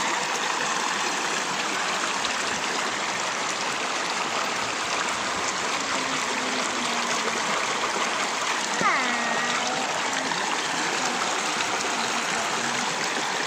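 Shallow, rocky river water rushing steadily over stones and boulders. A brief voice calls out about nine seconds in.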